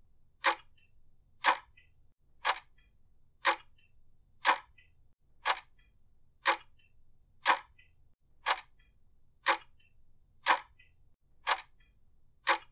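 Clock-ticking sound effect marking a countdown: one sharp tick every second, evenly spaced.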